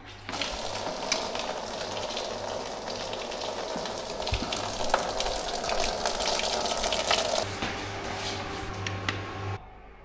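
Water spraying from a valve fitting on milking parlour pipework and splashing onto the floor: a steady hiss with a low hum beneath it, cutting off abruptly near the end.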